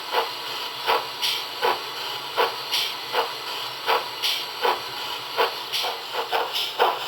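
Sound decoder in a 7mm model GWR 45xx 2-6-2T tank engine playing a steam locomotive's exhaust chuffs over a steady hiss, about two beats a second, unevenly spaced, and coming closer together near the end.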